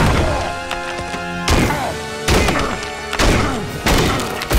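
Dramatic background music under a series of heavy impacts and crashes, about five hard hits roughly a second apart, with rock breaking apart.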